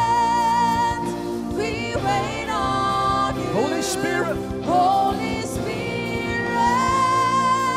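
Slow congregational worship song: several voices sing long held notes over sustained instrumental backing, with a long held note near the end.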